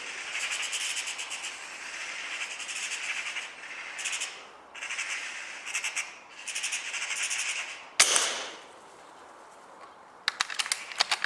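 Magpie chattering in repeated rapid rattling bursts, then a single sharp shot about eight seconds in with a short ringing tail, followed by a quick run of sharp clicks near the end.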